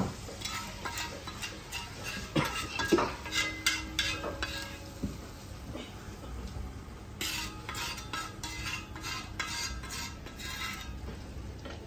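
A metal spatula stirring and scraping a spiced ghee masala in a pan, with clinks and clatter against the metal. It comes in two spells: one from the start to about five seconds in, and another from about seven to ten seconds in.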